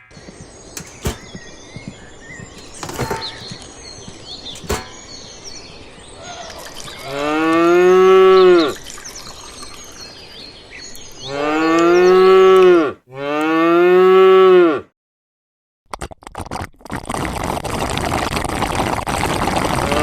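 A cow mooing three times, each a long call that rises and then falls in pitch, the last two back to back. Before the calls come scattered light clicks and taps, and near the end a noisy rushing sound builds up.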